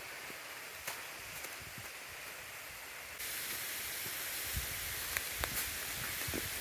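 Steady rush of falling water from a waterfall, stepping up louder about three seconds in, with a few faint clicks.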